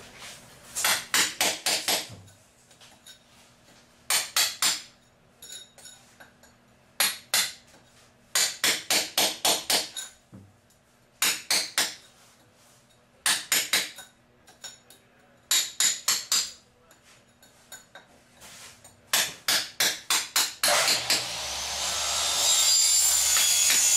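Hammer striking in quick bursts of five to eight sharp blows, about five a second, with short pauses between, as concrete is broken up around a drain pipe in a bathroom floor. Near the end a loud steady rushing noise comes in.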